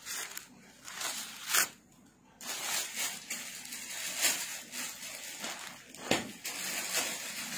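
Clear plastic garment packaging crinkling and rustling as a bagged shirt is handled, with a couple of sharper crackles.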